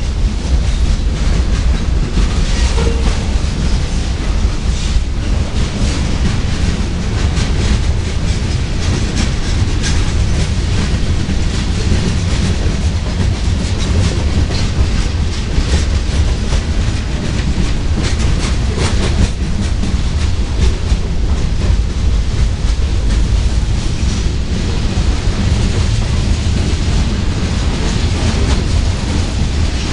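Freight train cars rolling past at steady speed: a continuous rumble of steel wheels on rail with constant clicking and clattering as the wheels cross rail joints.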